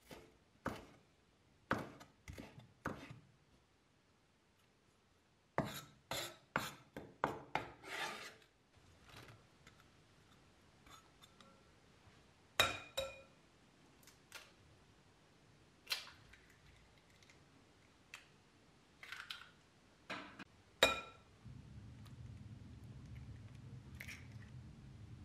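A cleaver chopping vegetables on a wooden cutting board, a handful of strokes, then scattered clinks and knocks on a glass mixing bowl as the chopped vegetables and two eggs go in, the loudest knocks with a brief glassy ring. A low steady hum starts near the end.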